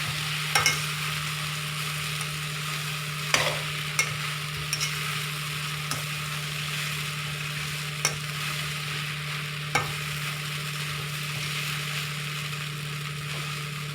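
Puffed-rice poha frying with a steady sizzle in a pan as it is stirred, a spoon knocking and scraping against the pan a few times.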